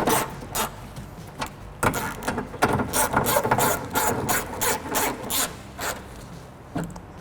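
Hand ratchet with a 10mm socket and extension clicking in quick runs as it is swung back and forth, with short pauses between strokes, snugging down small 10mm bolts.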